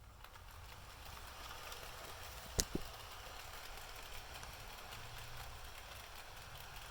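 Bachmann Spectrum model diesel locomotive running along the track, a steady motor-and-wheel hum with light rapid clicking, and a sharp double click about two and a half seconds in.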